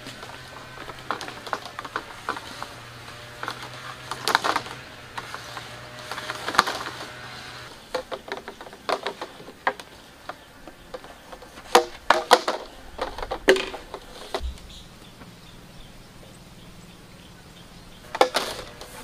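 Coiled black polyethylene water pipe being unrolled and handled: irregular knocks, clatters and scrapes of the plastic tubing against itself and the bamboo cart.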